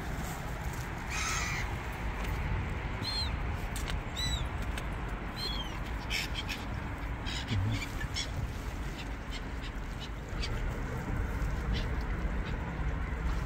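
Birds calling in short, high cries, several close together in the first half, over a steady low rumble.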